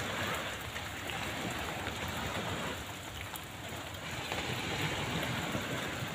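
Rain falling steadily, an even hiss of drops.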